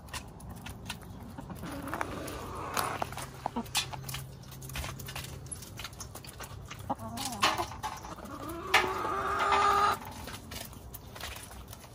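A small flock of hens clucking and calling as they feed, with scattered sharp pecking taps. Near the end one hen gives a louder, drawn-out call lasting about a second.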